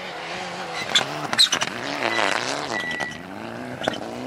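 Mitsubishi Lancer Evolution rally car's engine at full effort on a gravel stage, its revs climbing and dropping several times through gear changes, with a few sharp cracks over it.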